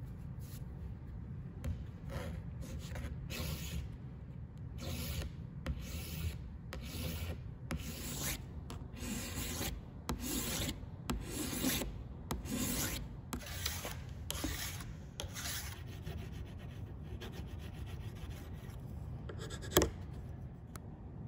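A bastard file rasping along the edge of a metal etching plate, bevelling it in repeated strokes, about one and a half a second. Near the end the filing gives way to fainter rubbing as the edge is burnished, with one sharp click.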